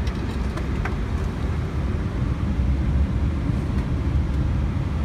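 Steady low rumble inside an Airbus A321neo cockpit on the ground, with its engines idling. A couple of faint clicks come in the first second.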